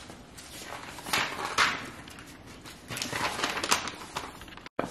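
Light knocks, clicks and rustling of handling, in two short bursts, with the sound cutting out for an instant near the end.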